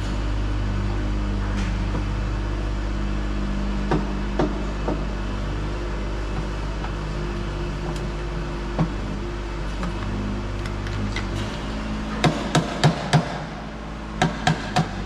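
A small portable generator runs with a steady hum while sharp knocks come from hands-on wiring work at a control panel: a few scattered knocks, a quick run of four about twelve seconds in, and several more near the end.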